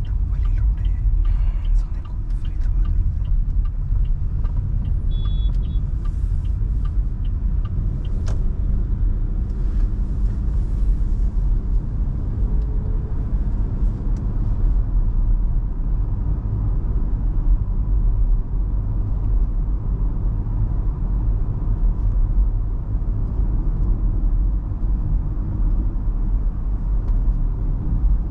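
An MG Hector Plus SUV on the move, heard as a steady low rumble of road and tyre noise with its 1.5-litre turbo petrol engine running underneath. A few faint clicks come in the first two seconds.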